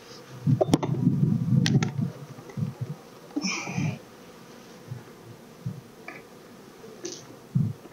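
Steel hive tool prying apart stacked wooden beehive boxes: two sharp cracks about a second apart as the joint breaks free, among heavy knocking of the boxes. Honey bees buzz past now and then.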